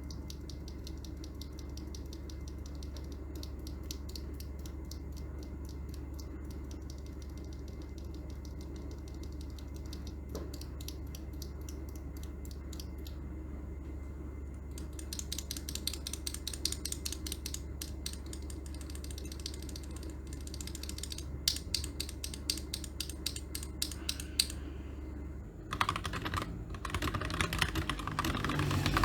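A loose Gateron Black Ink V2 linear switch pressed and released over and over, a steady run of small clicks several times a second. About 25 seconds in, this gives way to louder, denser typing on a 65% mechanical keyboard fitted with the same switches.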